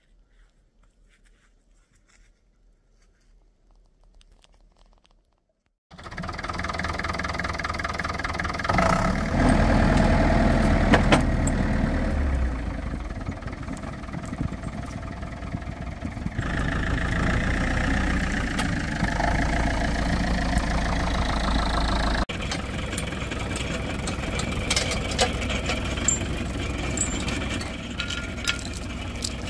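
Near silence for the first few seconds, then from about six seconds in a Case tractor's engine running steadily, louder for a few seconds around ten seconds in. Light clinks of a tow chain near the end.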